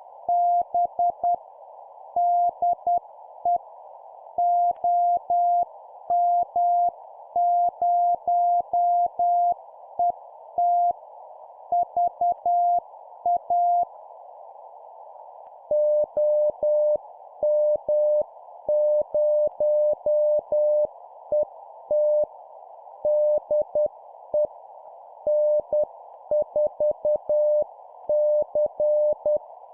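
Morse code (CW) sent at about 10 words per minute, a keyed tone over a narrow band of receiver hiss. One station sends at a higher pitch until about halfway, then after a short pause the other station answers at a slightly lower pitch.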